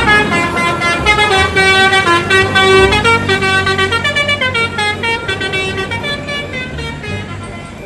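Bus telolet horn, a set of musical air horns, playing a quick tune of stepped notes that fades toward the end.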